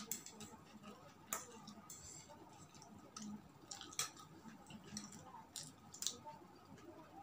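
Quiet eating sounds: soft, scattered clicks and wet mouth noises of someone chewing, several times over a few seconds.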